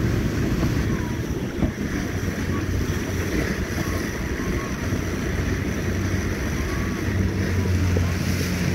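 Outboard motor of an inflatable dinghy running with a steady low hum, under wind buffeting the microphone and the wash of water along the hull. A brief thump about a second and a half in.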